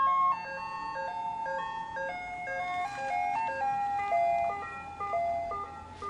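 Simple jingle melody of clear, chime-like notes stepping up and down, a held upper note over a moving lower line.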